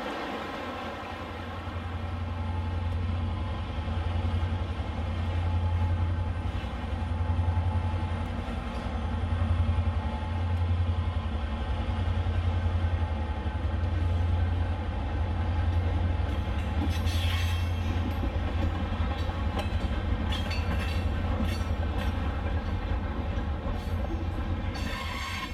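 HO-scale model freight train running on the layout, led by a Great Northern diesel locomotive: a steady low engine drone that sets in about a second and a half in, with scattered clicks of the cars rolling over the track in the second half.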